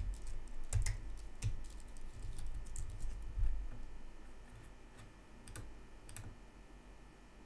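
Computer keyboard typing: a run of keystrokes over the first few seconds, thinning to a couple of single clicks in the second half.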